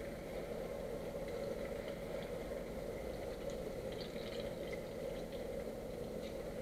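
Plantain slices frying in hot oil in a skillet: a steady sizzle with faint scattered crackles, over a steady low hum.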